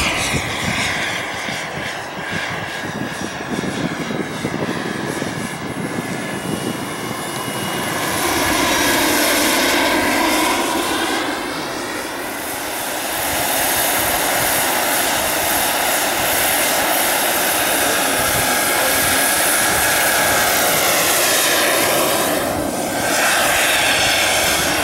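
Large-scale radio-controlled MD 500E model helicopter in flight: a steady whine from its drive and rotors that bends down and back up in pitch as it passes, growing louder about eight seconds in.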